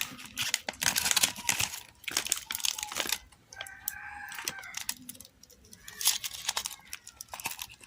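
Chocolate bar wrapper crinkling and tearing as it is opened, in bursts at the start and again near the end. In between, about three seconds in, a rooster crows once in the background, a drawn-out call lasting over a second.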